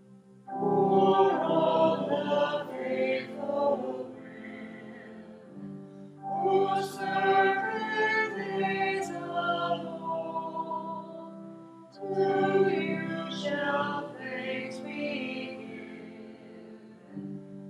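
Small group of voices singing a hymn together over sustained keyboard accompaniment, in three phrases starting about half a second, six seconds and twelve seconds in.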